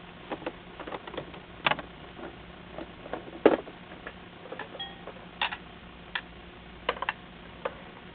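Irregular light clicks and taps, about a dozen and a half, over a faint steady hum; the sharpest tap comes about three and a half seconds in.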